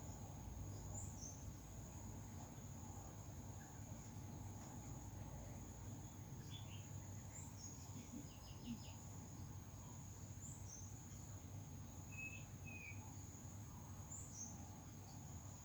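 A steady high-pitched insect drone, like crickets, runs throughout, with short, sparse bird chirps and calls scattered over it, a small cluster of them in the middle.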